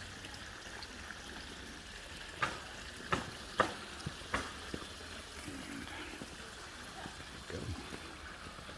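Steady hiss of running water, with four sharp clicks or taps about two and a half to four and a half seconds in.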